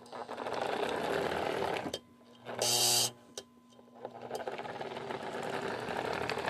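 Lionel MPC-era F3 toy train locomotive running on the track, its freshly cleaned and oiled Pullmor motors and gears whirring. The whir stops about two seconds in, a short loud burst sounds in the pause, and the whir starts again about a second later.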